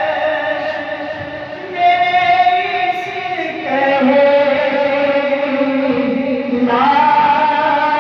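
A man singing a naat (Islamic devotional poem) into a microphone, drawing out long held notes and moving to a new pitch three times.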